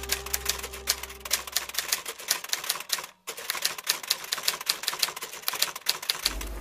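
Typewriter keys clacking in a rapid, uneven run as a caption is typed out, with a short pause about three seconds in.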